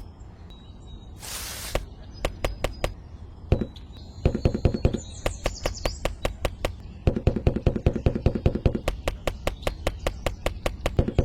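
A small motor ticking rapidly and evenly, about five clicks a second over a low hum, starting and stopping a few times before running steadily in the second half, after two short bursts of hiss near the start.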